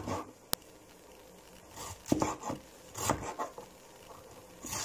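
Kitchen handling sounds at a counter: a sharp click about half a second in, then groups of knocks and scrapes of utensils, dishes and a wooden surface being handled.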